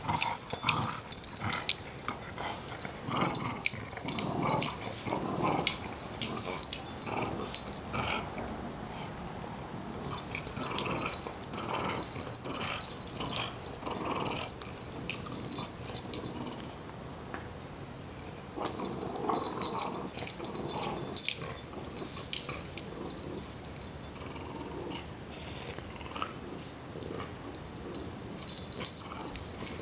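A Boston terrier and a French bulldog growling at each other in play while tugging on a toy, in irregular bursts with short lulls.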